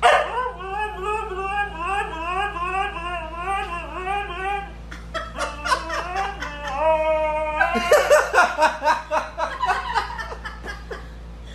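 White husky 'talking': a long warbling howl whose pitch wavers up and down rapidly for the first few seconds, then shorter yips and stepped, held notes. A person laughs in the second half.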